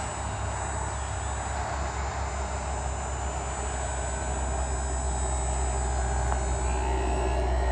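RC model airplane's motor and propeller running steadily as it flies low past, over a strong steady low rumble, with faint tones rising a little near the end.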